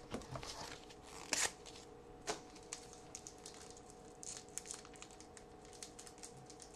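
Trading-card pack wrapper being torn open and crinkled by hand, with light rustling of the cards. The rustles come in scattered short bursts; the loudest is about a second and a half in.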